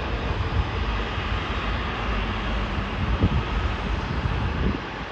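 Rolls-Royce Trent jet engines of a Boeing 777-200ER, heard from a distance as the airliner rolls out on the runway after touchdown: a steady jet noise over a heavy low rumble, easing slightly near the end.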